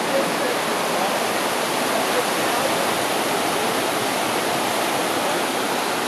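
Fast mountain creek rushing over boulders and rocks: a steady wash of white water.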